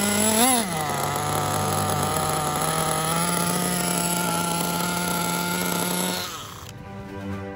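Small two-stroke nitro glow engine of a HoBao Hyper Truggy SS RC truggy running on its first start: a quick throttle blip about half a second in, then a steady idle that stops about six seconds in.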